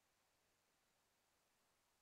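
Near silence: faint steady digital hiss.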